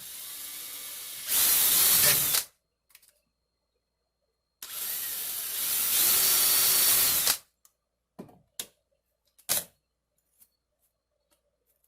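Power drill run twice in bursts of about two to three seconds, each starting at part speed and then jumping to full speed. A few short knocks follow near the end.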